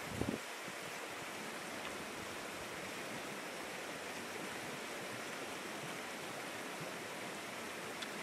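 Steady rushing outdoor background noise, with a brief low thump just after the start.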